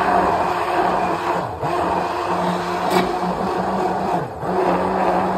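Hand-held immersion blender running in a plastic beaker, puréeing cooked peas into a smooth cream. Its steady motor hum drops in pitch briefly twice, about one and a half and four seconds in, with a light click about three seconds in.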